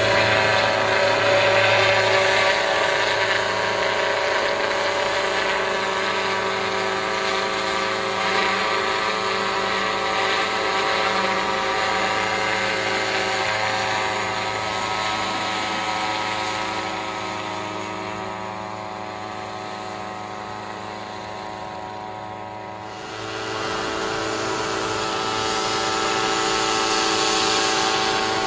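Small unmanned helicopter's engine and rotor running steadily with a droning, many-toned whine. It grows fainter past the middle, then suddenly louder again about three quarters of the way through.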